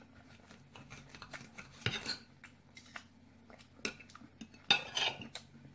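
Metal fork and knife clicking and scraping on a ceramic dinner plate while cutting food, in many short taps with two louder stretches, one about two seconds in and one near the end.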